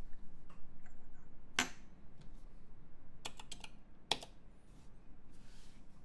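A few scattered keystrokes on a Jelly Epoch SE mechanical keyboard with lubed Raed 1.5 switches and GMK keycaps: one sharp clack between one and two seconds in, a quick run of about four near the middle, and another clack a little after four seconds.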